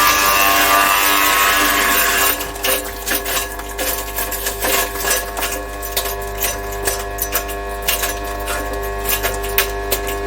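Forest Master wood chipper running, shredding PVC cable sheathing: a loud shredding noise for about the first two seconds. It then drops to the machine running on with scattered rattling clicks.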